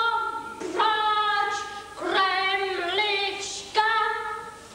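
Children singing a slow tune in long held notes, each lasting about a second.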